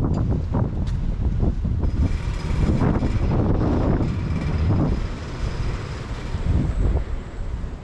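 Wind buffeting a handheld camera's microphone in uneven low gusts. A faint steady high whine runs through the middle of the stretch.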